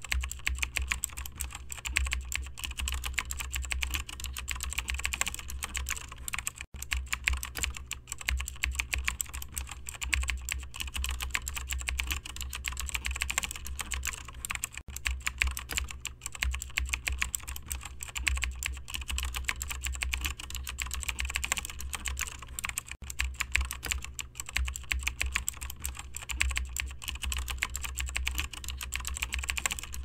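Rapid, continuous typing on a computer keyboard: a dense stream of key clicks with no pauses.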